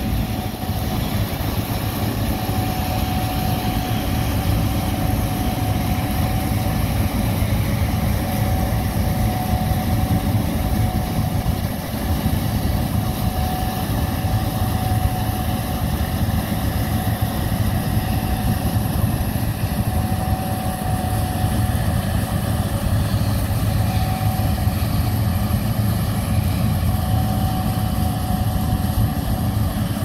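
Gleaner S67 combine harvester running steadily while harvesting soybeans: an even engine and machinery drone with a thin steady whine above it.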